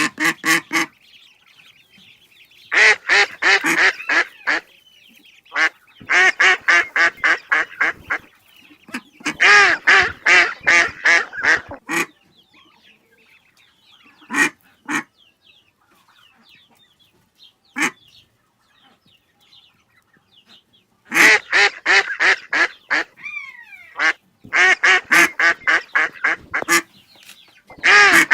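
Ducks quacking in rapid runs of about six quacks a second. The runs come in several bouts of one to three seconds with pauses between them, over faint higher bird calls.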